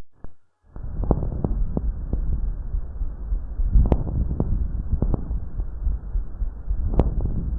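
Chest sounds heard through a stethoscope: a steady breath noise with repeated sharp clicks, starting after a short break.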